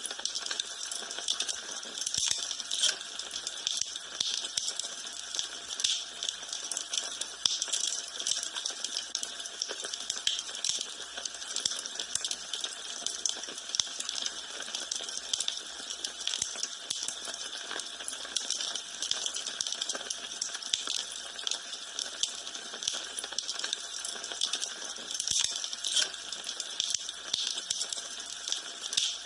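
Wood fire in a fireplace crackling steadily, with dense small pops and frequent sharper snaps.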